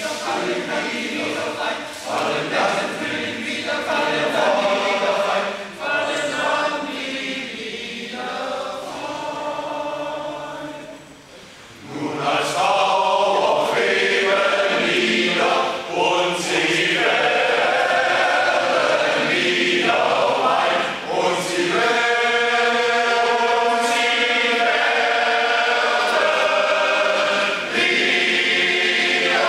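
Men's choir singing a cappella in several parts. The singing thins and drops quieter a little over ten seconds in, then comes back full and loud with long held chords.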